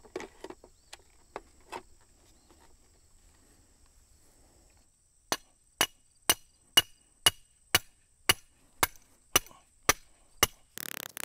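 Electric-fence ground rod being driven into the ground with a hammer: about eleven sharp metal strikes, about two a second, starting about halfway through.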